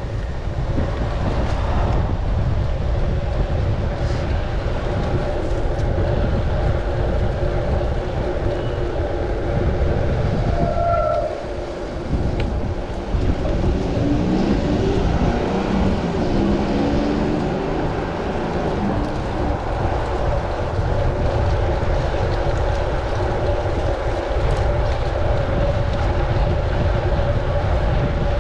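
Steady wind and road rumble on a riding cyclist's camera microphone amid city traffic, with a hum that holds throughout and a brief drop in level about halfway.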